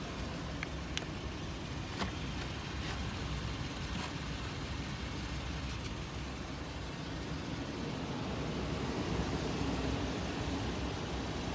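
Toyota Sequoia's V8 engine running at low speed: a steady low rumble, with a few faint clicks in the first few seconds.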